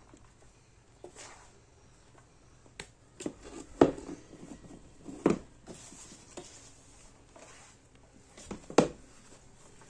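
Hands scooping and pouring coarse acorn flour between a woven basket and an aluminium pan: soft rustling, with a few sharp knocks against the pan, the loudest about four seconds in, about five seconds in, and near the end.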